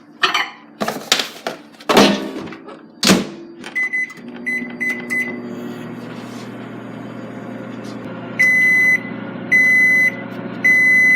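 Microwave oven being used: a few knocks, then short keypad beeps as it is set, then it runs with a steady hum, and three long beeps near the end signal that the heating cycle is done.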